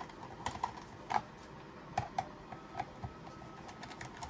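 Screwdriver backing screws out of the metal case of an HP server power supply: a string of small, irregular clicks and ticks as the bit turns and catches in the screw heads.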